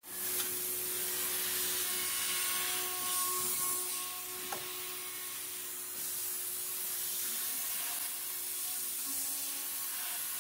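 Dual-worktable CNC router for acetate eyeglass frames running, its high-speed spindles milling acetate blanks: a steady hiss with a steady whine, and a short tick about four and a half seconds in.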